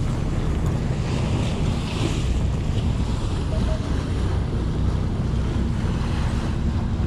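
Steady wind noise on the microphone and sea noise on the deck of a fishing boat, over the low, even drone of the boat's engine.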